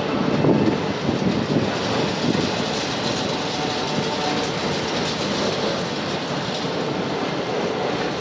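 Autorack freight cars rolling past: steel wheels on the rails giving a steady rumble and clatter, a little louder in the first second.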